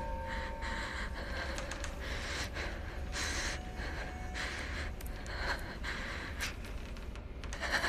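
A person breathing heavily and unevenly in gasps, over a steady low rumble.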